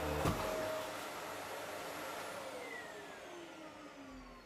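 Dyson upright vacuum cleaner switched off with a click, its motor whine falling steadily in pitch and fading as it spins down.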